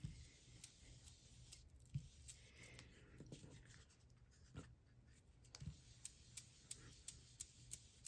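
Faint dabbing and rubbing of an ink blending brush on cardstock, with light taps coming about three a second near the end.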